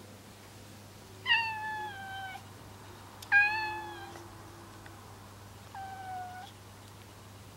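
A cat gives three long, drawn-out meows, each falling slightly in pitch, with the third fainter. These are warning calls in a standoff with another cat over a contested resting spot.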